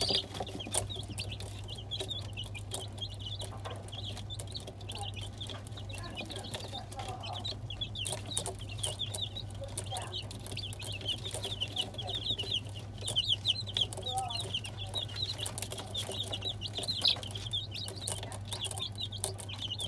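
A brood of young chicks peeping continuously, many quick high chirps overlapping, over a steady low hum.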